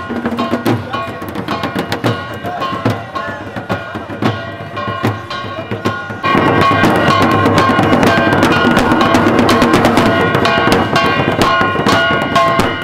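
Devotional kirtan music from a street procession: large drums beaten with sticks in a steady, busy rhythm over steady ringing tones. It gets suddenly louder about six seconds in.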